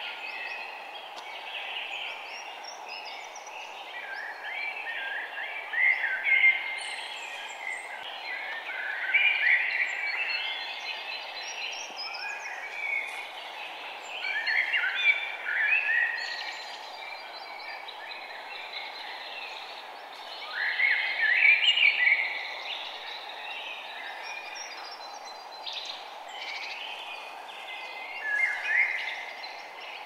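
Songbirds singing, with a burst of quick chirping phrases every few seconds over a steady background noise.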